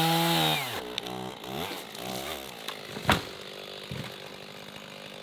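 Stihl MS 210 two-stroke chainsaw running at full throttle, then the throttle is released about half a second in and the engine falls to an uneven idle. A single loud sharp knock about three seconds in.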